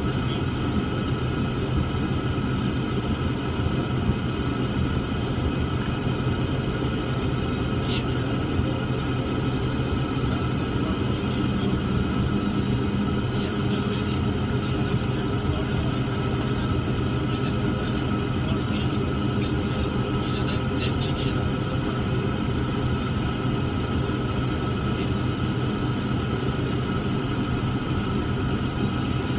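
Cessna 340's twin turbocharged six-cylinder Continental piston engines running at low taxi power, a steady drone heard inside the cabin.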